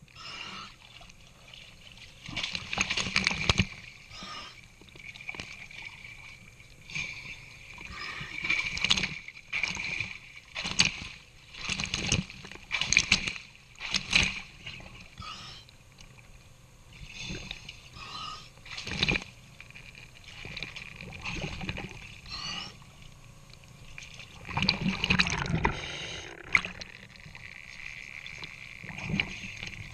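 Water sloshing and splashing at the surface close to the microphone, in irregular bursts every second or two, as a diver works along a boat hull at the waterline.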